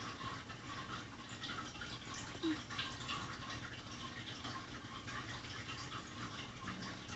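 A sleeping cat snoring: a soft, steady crackling breath sound, with one brief louder sound about two and a half seconds in.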